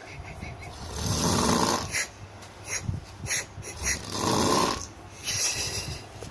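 Snoring, likened to a frog: two long, rasping snores about a second and about four seconds in, following a slow breathing rhythm of about one every three seconds. Softer clicking breaths come between them.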